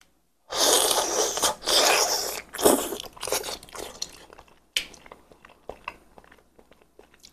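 Close-miked eating of a red-braised chicken head: about two seconds of loud biting and slurping, then quieter chewing with small crunches and mouth clicks that thin out toward the end.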